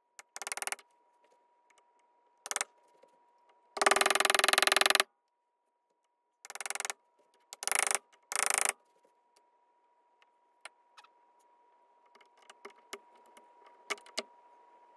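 Wood chisel paring and scraping at a painted wooden door-frame trim in a run of short rasping strokes, the longest lasting about a second, then only a few faint light clicks and taps of the blade on the wood.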